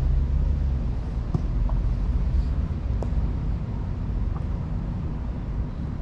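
Steady low outdoor rumble, with a few faint sharp knocks of a futsal ball being kicked far across the pitch, about a second and a half apart near the start.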